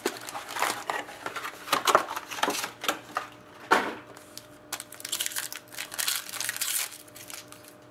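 Foil trading-card packs crinkling in irregular rustles and crackles as they are handled and pulled from their box, then a pack's foil wrapper being torn open near the end.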